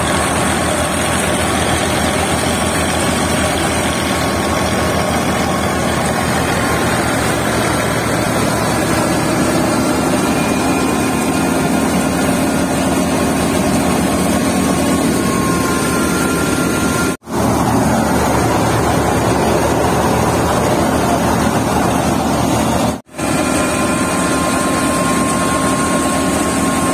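Tractor-driven mustard thresher running steadily under load, its drum and fan churning as the crop is fed through and chaff is blown out, over the tractor's engine. The sound drops out briefly twice in the second half.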